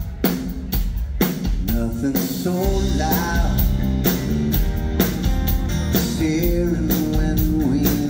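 Live rock band playing a song: a drum kit keeps a steady beat of about two hits a second under strummed acoustic guitar. A lead vocal comes in about two seconds in.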